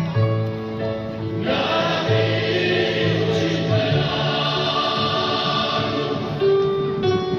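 Combined choirs of Nuoro singing together, a slow song with long held notes.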